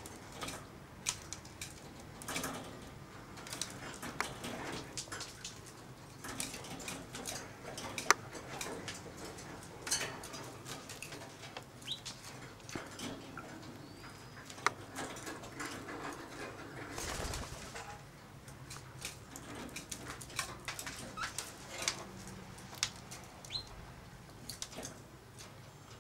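Budgerigar husking seeds from a spray of millet with its beak: irregular sharp clicks and crackles, with a few faint short chirps.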